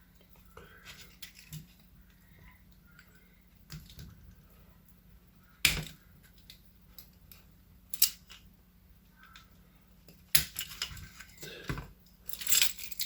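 Small metal lock parts clicking and clattering as the clip that holds the handle on a door-knob lock is fitted back on. There are a few separate sharp clicks, then a busier clatter near the end.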